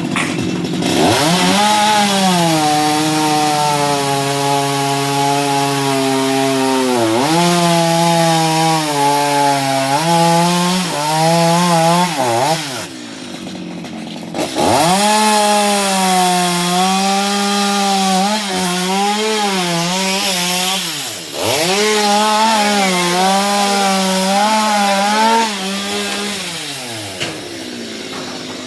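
Stihl MS 230 two-stroke chainsaw running at high revs and cutting through coconut wood, its pitch sagging and wavering under load. It drops off for about two seconds midway and dips again later, then falls away near the end.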